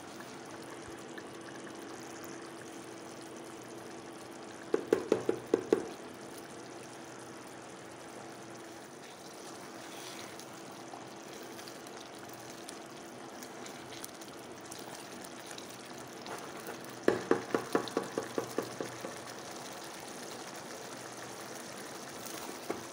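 Peppered sardine sauce simmering in a stainless steel pot, a steady bubbling. Twice, about five seconds in and again about 17 seconds in, a run of rapid taps at about five or six a second as the slotted spoon breaks the sardine into pieces against the pot.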